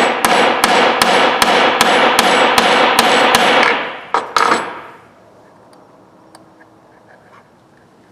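Hammer tapping a punch against a Snap-on F723A ratchet's head, about three ringing metal strikes a second, trying to drive a part out. The strikes stop about three and a half seconds in, two more come a little later, and then only faint small ticks remain.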